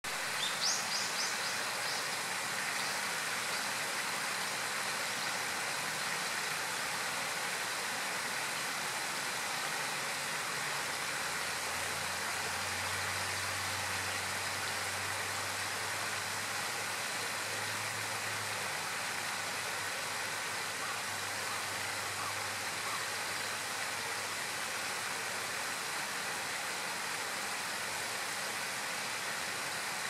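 Steady rushing of stream water, with a quick run of four or five high, rising bird chirps about half a second in. A faint low hum sits under it through the middle.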